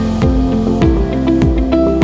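Background music with held synth notes and a steady beat, starting abruptly just before.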